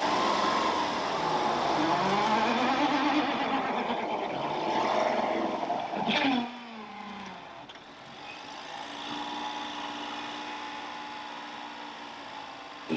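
A car engine revving up and down for about six seconds, ending with a click and a sudden drop, followed by a quieter, steady engine sound.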